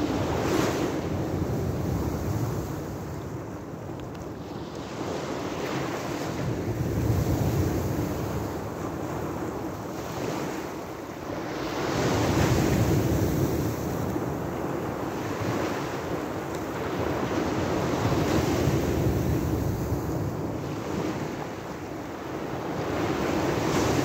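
Small sea waves breaking and washing up a pebbly shore. Each wave swells and ebbs, and a surge comes about every five or six seconds.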